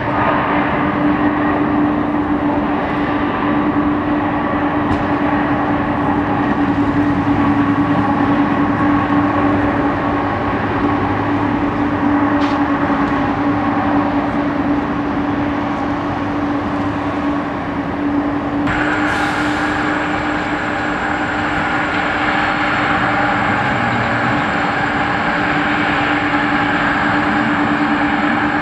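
McDonnell Douglas MD-11's turbofan engines during the landing rollout: a loud, steady jet rush with a constant hum. About two-thirds of the way through it changes abruptly to the higher whine of the engines as the jet taxis.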